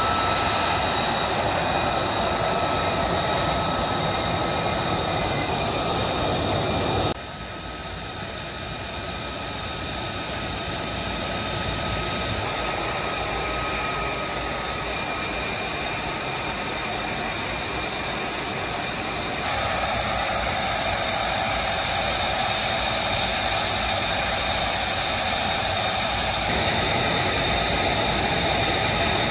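F-35B Lightning II's F135 jet engine running steadily at low power, a loud rush with a high, steady whine, kept turning while the jet takes on fuel at a hot-pit refuel. Its loudness and tone jump at cuts: it drops sharply about seven seconds in, then builds back and grows louder toward the end.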